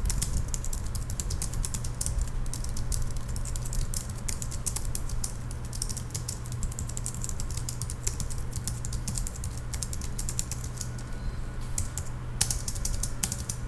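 Typing on a Logitech MX Keys low-profile keyboard: a rapid, continuous run of light key clicks from its scissor-switch keys, with a short pause near the end, over a low steady hum. This is the small sound the keys still make on a keyboard chosen for being quiet.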